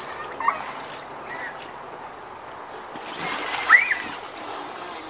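Water sloshing and splashing in an inflatable pool as a child moves about on a ring float, with a short high squeal from a child near the end and a smaller one about half a second in.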